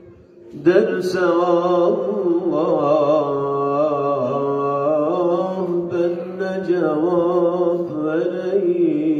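A man singing a Turkish Islamic hymn (ilahi) unaccompanied into a microphone: after a short pause for breath he sings one long, ornamented line of held notes that bend up and down.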